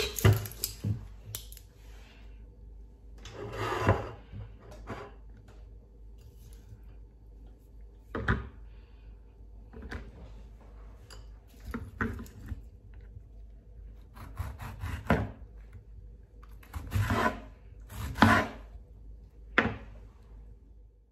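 Hands working with a serrated knife and tomatoes on a bamboo cutting board: scattered knocks of things set down on the wood and scraping swishes of the knife and produce, coming irregularly, with a cluster of louder swishes near the end as a tomato is cut.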